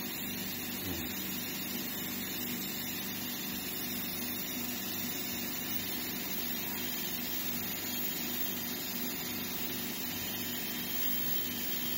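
Nakanishi NE236 brushless motor with EM25-5000 spindle running steadily at about 25,000 rpm: an even whir with a low hum and a continuous hiss.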